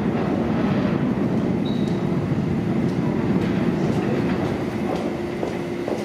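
R160-series subway train pulling out of the station into the tunnel: a steady rumble of wheels on rail that eases slightly near the end as the train moves away.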